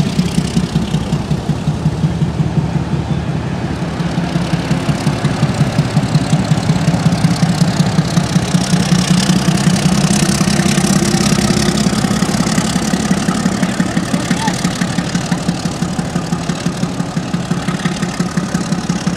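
Diesel locomotive's engine running with a steady, rhythmic throb as it hauls a passenger train past below, loudest around the middle and easing off towards the end.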